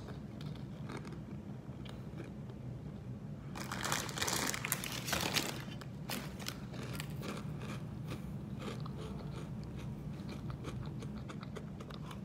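Close crunching and chewing of Hot Cheetos, a crisp corn snack, in the mouth, as irregular short crunches, louder and denser for a couple of seconds about four seconds in.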